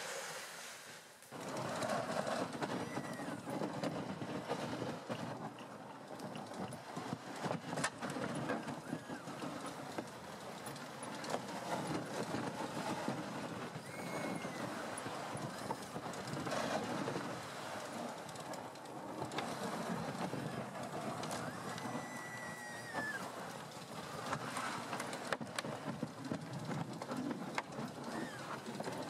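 MTT-136 rubber-tracked robotic carrier crawling over snow with towed sleds: a steady rumbling clatter of tracks and bumping sleds, with a few sharp knocks.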